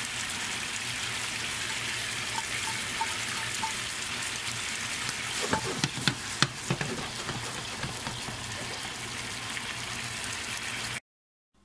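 Shrimp sizzling and bubbling in sauce in a frying pan, a steady hiss. About halfway through come a few sharp clatters of utensils in the pan as green onion is added, and the sizzle cuts off suddenly near the end.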